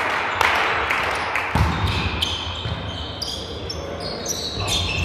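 Indoor sports hall: crowd applause dying away, then a volleyball thudding on the court floor as it is bounced.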